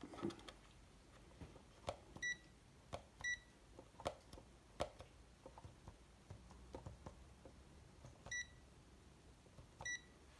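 Habotest HT118A digital multimeter giving short high beeps as its buttons are pressed, two about a second apart early on and two more near the end, with faint clicks of the buttons and selector dial in between. The meter is faulty: it stays stuck on its test screen whatever is pressed.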